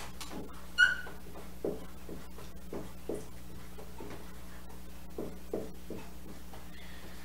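Dry-erase marker writing on a whiteboard: a series of short strokes, with one sharp high squeak of the marker tip just under a second in.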